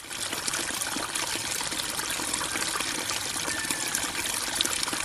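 Water-like sound effect: a steady, crackling trickle that starts abruptly and cuts off suddenly.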